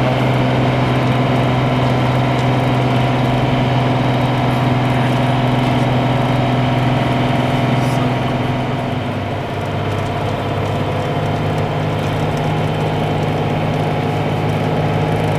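Vehicle engine running steadily with road noise, heard from inside the cab while driving; the engine note changes about nine seconds in, with a brief dip in level.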